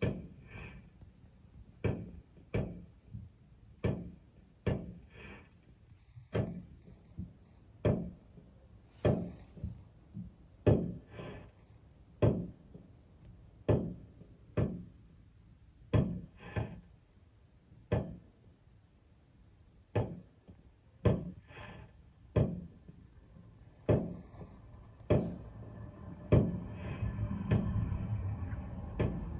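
Fireworks going off: a long series of sharp bangs, irregularly spaced about one to two seconds apart, each dying away briefly. A steady noise builds up near the end.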